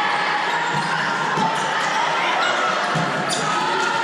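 Volleyball game in a gym: a ball thuds several times and there is one sharp smack about three seconds in, over steady crowd chatter.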